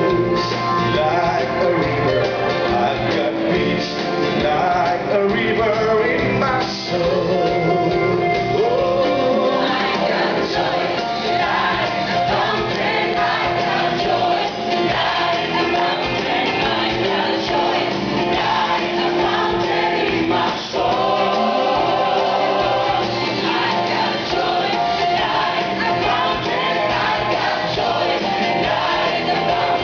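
Mixed choir of men and women singing a Christian worship song in sustained, continuous phrases, accompanied by a live band with drums and bass guitar.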